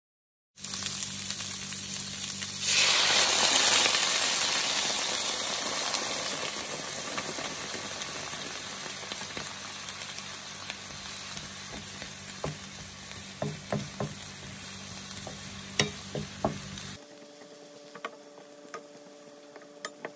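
Beef cubes and chopped onion sizzling in a frying pan. The sizzle grows louder about three seconds in and slowly fades, with scattered clicks of a spatula stirring later on. Near the end it drops abruptly to a much quieter level.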